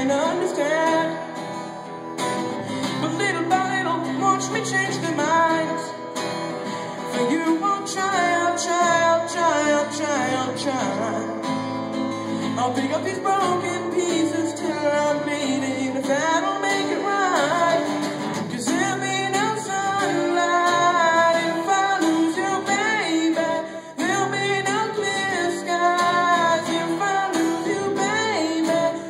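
A solo singer performing a song with acoustic guitar accompaniment. The vocal line is continuous, with a brief drop in level a little before the end.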